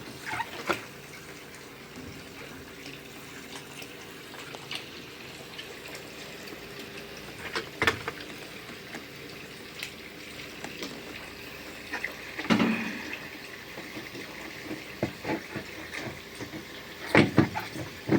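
Scattered knocks and clatters of washing machine parts being fitted back together, the loudest about 8 s, 12.5 s and 17 s in, over a steady background hiss.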